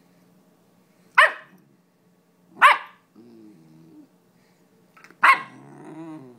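German Shepherd puppy giving three sharp, high play barks about a second and a half apart, with low, drawn-out growls between the second and third barks and after the last one.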